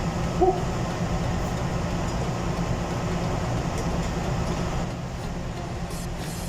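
Steady low rumbling noise, easing slightly near the end, with a short knock about half a second in.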